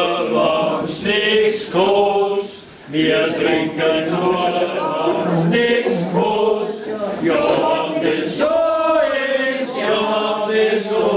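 A group of people singing together in chorus with their glasses raised, pausing briefly about two and a half seconds in.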